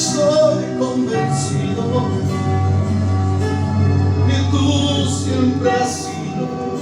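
Christian worship music from a Spanish-language worship song, heard in the passage between two sung lines.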